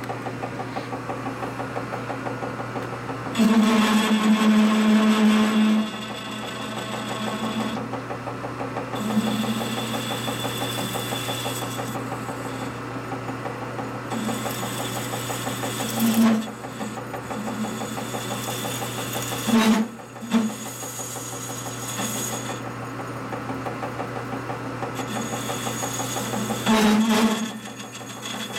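A metal-working machine tool running steadily, cutting metal, with a constant hum and a fast, regular pulsing. It gets louder for a couple of seconds early on, briefly twice around the middle, and again near the end.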